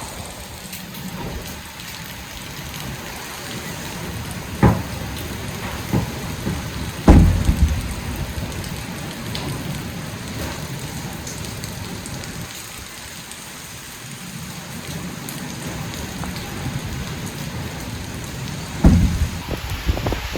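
Hurricane rain falling steadily, with a few sudden thumps, the loudest about seven seconds in and another near the end.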